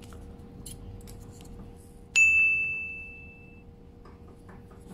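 A single bright ding about two seconds in, with a clear ringing tone that fades over about a second and a half. Faint clicks and rustles of a syringe and plastic bottle being handled come before and after it.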